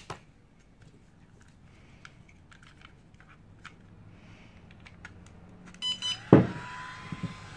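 An XT60 plug being pushed into an ISDT Q6 Plus battery charger's power input: the charger beeps as it gets power, then the plug snaps home with a loud click about six seconds in. A steady faint tone and hiss follow as the charger boots up, with light handling clicks before.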